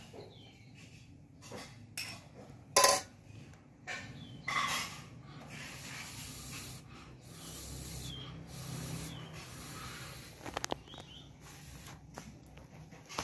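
Baby monkey making faint, short high squeaks, with a spoon clicking against dishes and a sharp clatter about three seconds in.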